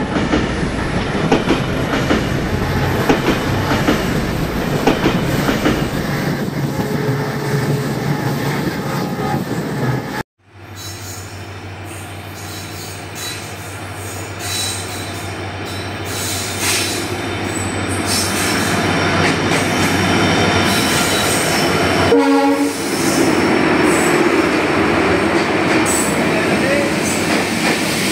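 About ten seconds of loud, dense crackling that cuts off abruptly. Then an arriving train hauled by a WDG4 diesel locomotive: its engine drones steadily while the rumble of wheels and coaches builds, with a short horn blast about two-thirds of the way through, followed by louder wheel and coach noise as the train rolls past.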